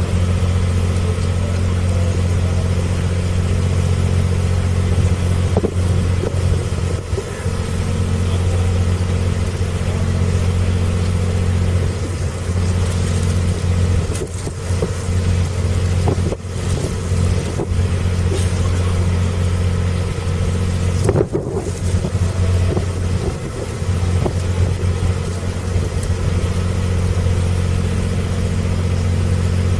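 Narrowboat's inboard engine running steadily at low speed: a constant low drone, heard from on board.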